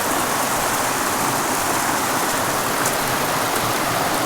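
Creek water rushing steadily over rock, an even hiss that holds at the same level throughout.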